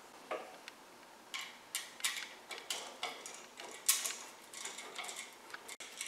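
Quiet, irregular small clicks and ticks of wires being fitted and a screwdriver working the terminal screws on a plastic GFCI receptacle.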